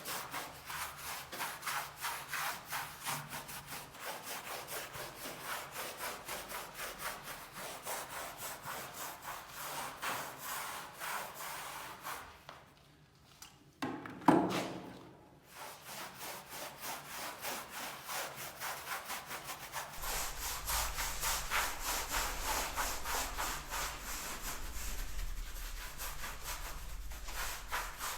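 Wide brush scrubbing over rough decorative plaster in quick back-and-forth strokes, working diluted matte acrylic lacquer into the texture. The strokes pause briefly about halfway, with a sharp knock just after, and come back harder and brighter later on.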